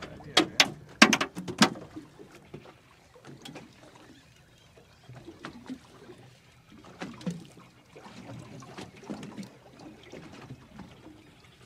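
Water slapping and lapping irregularly against the hull of a drifting boat. A few sharp clicks or knocks come in the first two seconds.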